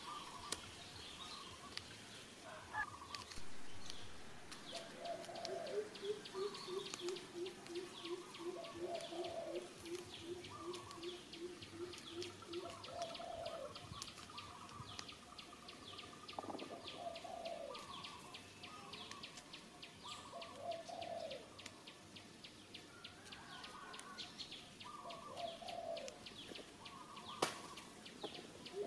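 Birds calling: a low cooing call repeated every couple of seconds, a long run of quick low notes at about three a second from about five to twelve seconds in, and scattered chirps over a steady high ticking chatter.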